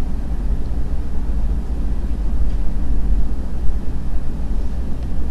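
Steady low rumble of background noise, with no distinct events apart from a couple of faint clicks.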